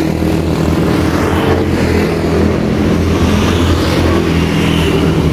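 Steady road traffic: the engines and tyres of cars and motorcycles passing on a busy street.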